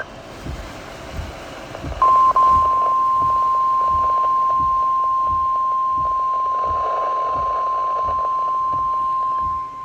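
NOAA Weather Radio warning alarm tone: one steady high tone near 1050 Hz that starts about two seconds in and cuts out for an instant just after. It signals that a warning message is about to be broadcast.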